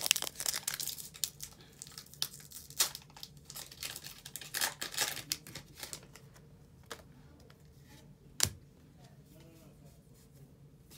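Foil wrapper of a Pokémon card booster pack being torn open and crinkled for about the first six seconds, then one sharp tap about eight and a half seconds in.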